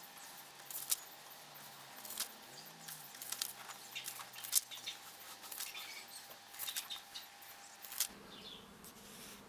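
Paper pages of a hardbound book rustling and being turned, with scattered light ticks and brushes of a hand on the paper.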